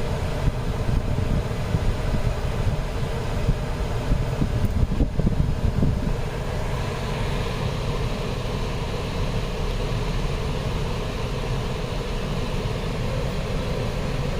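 A 2010 Chrysler Sebring's freshly recharged air conditioning running with the car idling: a steady rush of blower air over a low engine hum, a little busier for a couple of seconds near the middle.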